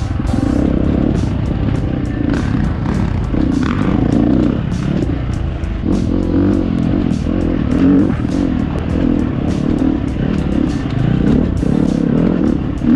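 Dirt bike engine running with the throttle opening and closing in repeated surges, mixed with background music that has a steady beat.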